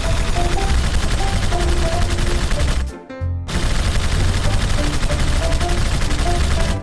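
Music with short melody notes over a loud, dense crackling noise; the sound cuts out briefly about three seconds in.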